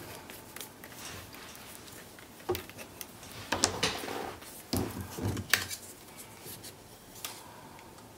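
Handling sounds of paper-crafting supplies on a cutting mat: scattered light clicks, taps and paper rustles as a glue pen is laid down and a squeeze bottle of liquid glue is picked up. The busiest stretch comes just past the middle.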